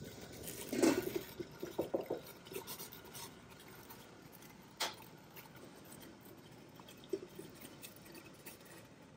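A ceramic plate knocking and clinking against a stainless-steel steamer pot and its perforated tray as it is set in. The loudest knock comes about a second in and a single sharp clink near the middle, over a steady hiss from the steaming water.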